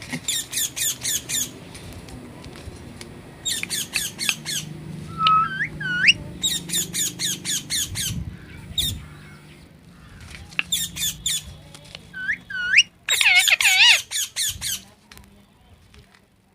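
Parrot calling in repeated bursts of sharp, high screeches, about five a second, broken by a few rising whistles, with a louder harsh squawk near the end.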